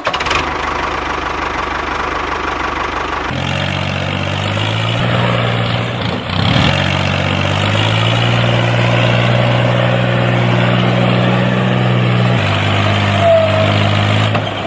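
A tractor engine running steadily at a low, even pitch. The low hum sets in about three seconds in, and the pitch shifts briefly around six seconds and again near twelve seconds.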